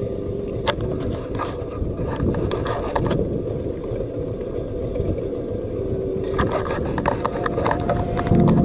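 Yamaha FZ-S motorcycle's single-cylinder engine running steadily while riding over a rutted mud track, with scattered sharp clicks and rattles. Music comes in near the end.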